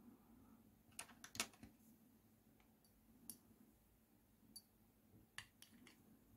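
Faint, sharp clicks of glass on glass: a glass stirring rod knocking against the inside of a shot glass while stirring. A quick cluster of clicks comes about a second in, then single clicks spaced a second or more apart.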